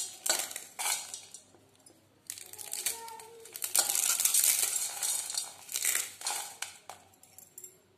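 Dry instant noodles being crushed by hand into small pieces in a stainless steel bowl: irregular crackling and crunching as the brittle noodles break and scatter against the steel, with a short pause about two seconds in.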